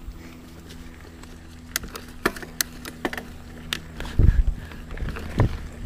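Mountain bike rolling down a dirt singletrack: a steady rumble of tyres and wind on the mount, sharp rattling clicks from the bike, and two heavy thumps over bumps, about four and five and a half seconds in.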